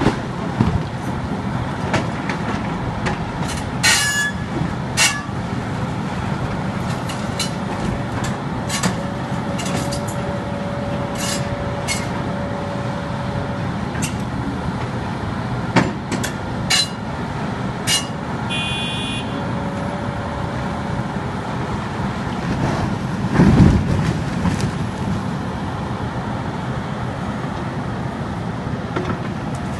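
Hidromek 370 hydraulic excavator's diesel engine running steadily under load as its bucket pushes against a marble block. Sharp clicks and knocks of the steel bucket on stone come through the first two-thirds, and a heavier low thump comes about three-quarters of the way through.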